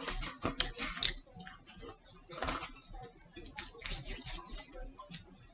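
Irregular crackling, tapping and rustling from fast-food paper and cardboard packaging being handled, with eating sounds; a longer rustle comes about four seconds in.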